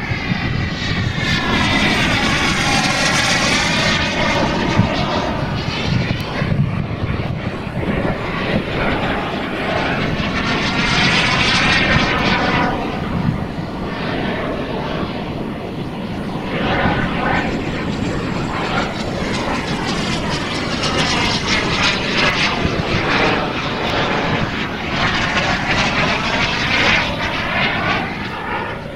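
Twin Kingtech K210 gas turbine engines of a giant-scale RC F-14 model jet in flight: a steady jet rush that sweeps in pitch as the model flies past several times.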